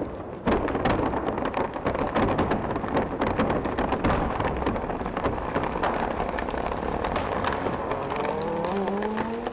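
Chainsaw cutting into wood, with a dense crackling from the chain and wood chips; near the end its engine pitch climbs.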